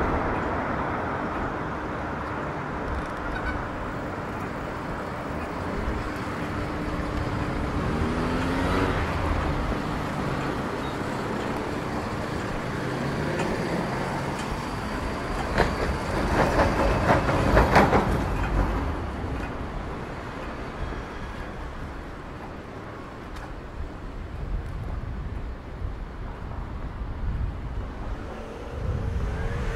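City street traffic: cars passing, with engine pitch rising and falling as vehicles go by. A little past halfway comes a louder stretch of rapid clattering knocks.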